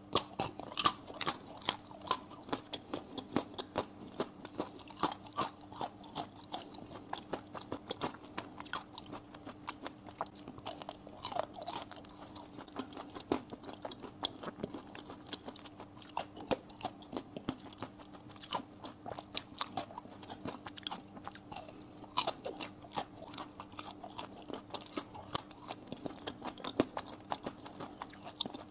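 Biting and chewing a pink crumb-coated ice cream bar: irregular crisp crunches from the crumb coating, several a second, over a faint steady hum.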